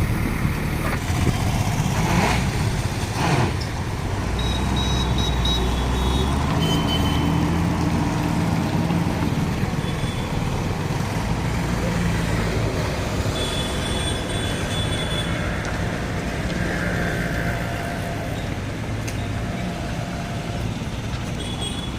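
Heavy diesel machinery running steadily: a JCB 3DX backhoe loader and a truck. Two sharp knocks come about two and three seconds in, and short high beeps sound now and then.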